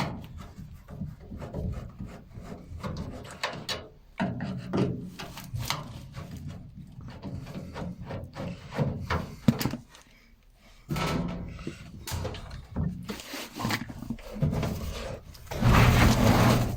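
Irregular knocks, taps and rubbing as a washing machine's plastic drain pump and its housing are handled and worked loose, with a louder stretch near the end.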